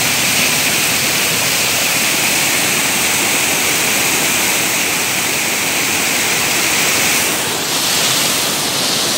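Fast mountain stream rushing over rocks as whitewater, a steady, loud rush of water.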